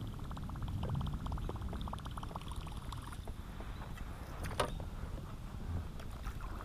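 Baitcasting reel being cranked in, a fast run of fine ticks over a low rumble of the kayak on the water, with one sharp knock about four and a half seconds in.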